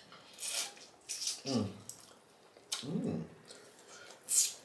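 Close-miked wet eating sounds: lip smacks and chewing of soft stewed fish, with two short falling "mm" hums of enjoyment in between.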